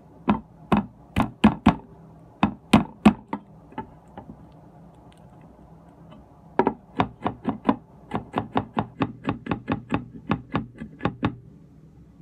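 Chinese cleaver chopping garlic cloves on a wooden chopping board: sharp knocks of the blade hitting the board. A few short runs of strikes come in the first three seconds, then after a pause a steady run of about four chops a second from around six and a half seconds in.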